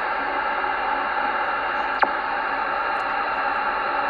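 CB radio receiver in SSB mode hissing with steady band static while no station is coming through. About halfway there is a brief falling whistle with a small click.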